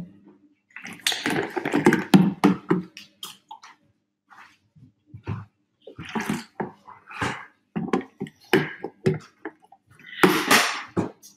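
Water sloshing in a large plastic water bottle as a man handles it and drinks from it, in irregular bursts, loudest about a second in and again near the end.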